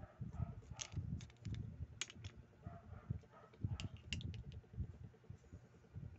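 Irregular light clicks and ticks of small metal reel parts and tools being picked up and handled on a workbench, over dull low thumps of handling.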